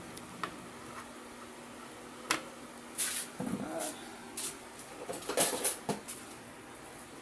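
Hands working at a cube's packaging box: scattered sharp clicks and short scraping rustles, coming in clusters a couple of seconds in and again around the middle and later.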